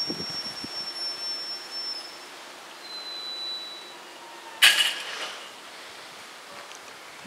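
Railway level-crossing barrier booms lowering, with a faint steady hum from the drive, then one loud metallic clank with a short ring about four and a half seconds in as the booms come down to rest.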